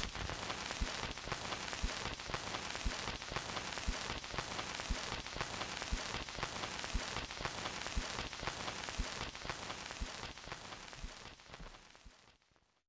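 Steady hiss and crackle like static or rain, with faint low ticks about twice a second, fading out near the end; it is the noise tail at the close of the track once the music has stopped.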